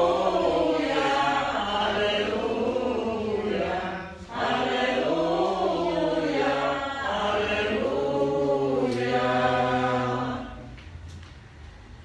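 A small congregation singing a church hymn together in three phrases with short breaks between them; the singing stops about ten and a half seconds in.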